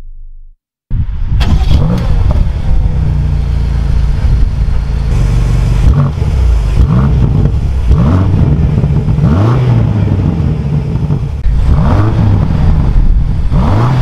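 BMW M8 Competition's 4.4-litre twin-turbo V8 starting up about a second in with a loud flare through its quad exhaust, then idling. From about six seconds in, a series of quick throttle blips rises and falls in pitch roughly every second and a half. Vapour from the tailpipes points to a cold start.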